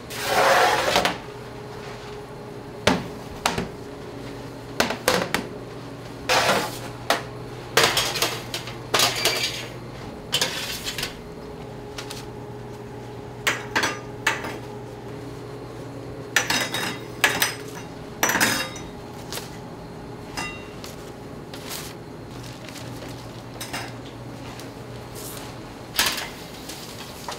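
Bakery kitchenware clattering: irregular clinks and knocks of metal utensils and trays, some in quick clusters and the loudest right at the start, over a steady low machine hum.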